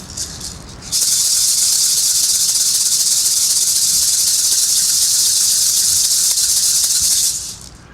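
A pair of uli uli, Hawaiian feathered gourd rattles filled with natural uli uli seeds, shaken fast in one continuous, bright, even rattle. It starts abruptly about a second in and fades out near the end.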